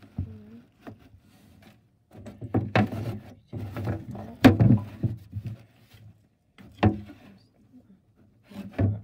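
Wooden gerbil-cage furniture, a wooden ladder and carved wooden hides, being shifted and set down in wood-shaving bedding: irregular knocks and rubbing of wood on wood and glass. The sharpest knock comes about four and a half seconds in.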